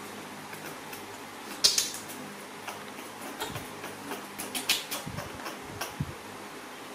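Scattered short taps, scratches and rustles of handling and movement on bedding, the sharpest about one and a half seconds in and a quick cluster a little past the middle, over a steady fan-like hum.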